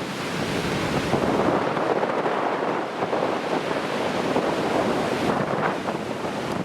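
Strong wind battering the microphone over rough surf, the typhoon's backwash wind still blowing hard.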